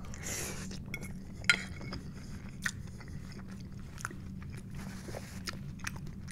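Close-miked chewing of a mouthful of loaded tater tots: wet mouth sounds with irregular sharp clicks and crunches, over a steady low hum.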